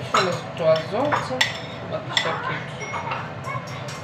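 A metal utensil clinking and scraping against cookware while noodles are stirred and mixed with egg: a series of sharp, irregular clinks.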